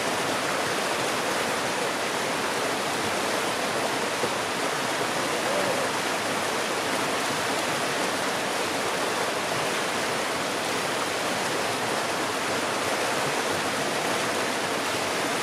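Rocky creek rushing steadily through a small whitewater cascade.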